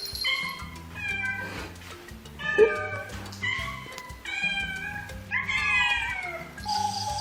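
Domestic cat meowing about six times in a row, the last meow longer and falling in pitch, over background music.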